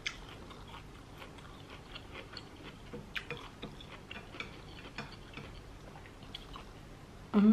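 Quiet eating sounds: chewing with small, irregular clicks and smacks of mouth and fingers or cutlery at a plate.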